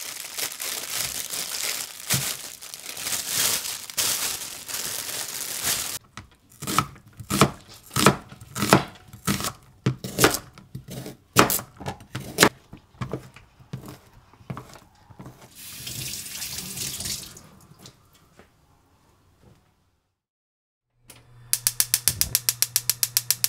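Vegetable prep, then a gas hob. First a steady rushing hiss for several seconds. Then a run of knife chops, about two a second, slicing a tomato on a cutting board. Near the end a gas burner's igniter clicks rapidly, about ten times a second, over a low hum as the burner is lit.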